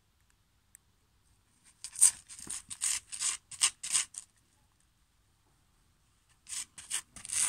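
Dog's paw scraping on gritty dirt as it paws at a hedgehog curled into a ball, a quick run of about eight scratchy strokes a couple of seconds in, then another run near the end.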